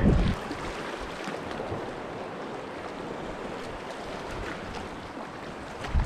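Small sea waves washing and lapping against shoreline rocks: a steady hiss of moving water.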